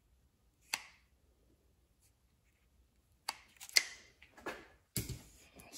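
Scissors cutting through a rubber spark plug boot: one snip about a second in, then several more snips close together in the second half.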